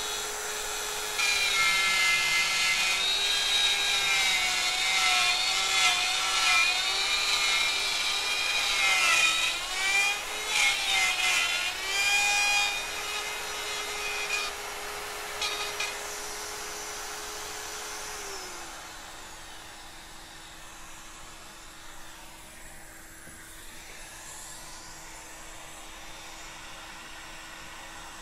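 Electric wood router running and cutting into wood: a loud high cutting whine over the motor's steady tone from about a second in, with the motor pitch sagging a few times under load. The cutting stops at about 16 s and the router spins freely. Near 18 s its pitch drops and a quieter, lower hum carries on.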